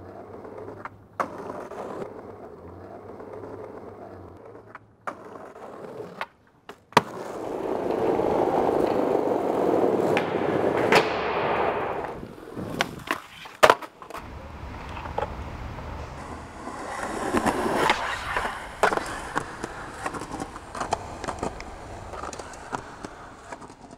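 Skateboard rolling on street pavement, its wheels making a steady rolling rumble, with sharp clacks of the board popping and landing several times. The rolling swells loud for a few seconds in the middle, drops, then rises again.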